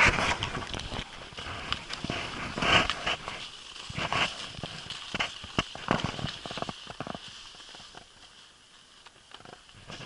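Footsteps crunching in deep snow, coming in irregular strokes that grow quieter near the end.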